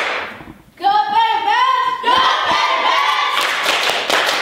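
A child's voice leading a rhythmic classroom chant in a singsong tone from about a second in. Near the end the class joins in, chanting together in unison and clapping in rhythm.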